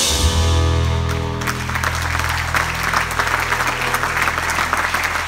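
A band's closing chord rings out, and about a second and a half in an audience breaks into applause over a lingering low note.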